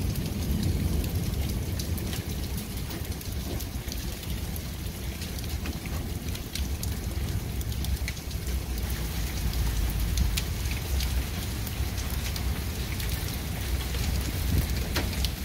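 Rain falling steadily, with many sharp ticks of drops landing and a low rumble of wind on the microphone.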